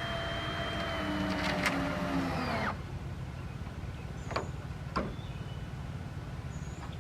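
Power drill driving a hex-head screw, its motor whining steadily, then sagging in pitch and stopping a little under three seconds in; a couple of light clicks follow.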